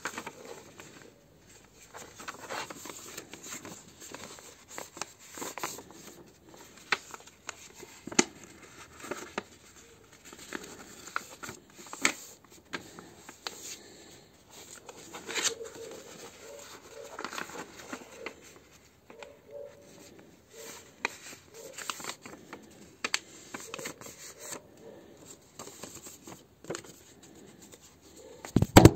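A sheet of paper being folded and creased by hand on a wooden table: irregular crinkles and rubs with sharp crease strokes, and a louder rustle right at the end.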